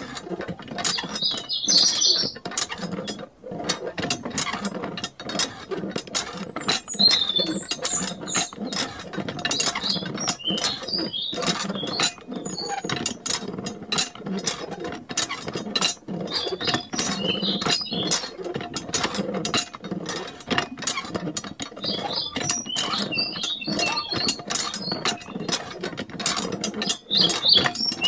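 Miniature hand pump being worked, giving a fast, irregular mechanical clicking and rattling throughout, with short high chirps now and then.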